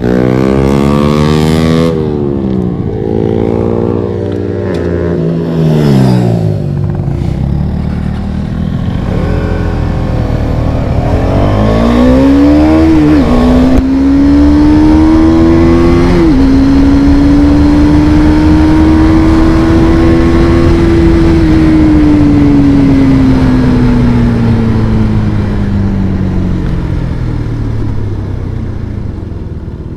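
Motorcycle engine running loudly: the revs fall away over the first few seconds, then climb through two quick gear changes around the middle, hold high for several seconds and slowly die down near the end.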